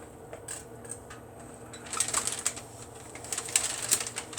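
Irregular light clicks and crinkling of hands handling food and packaging during sandwich making, busiest from about two seconds in.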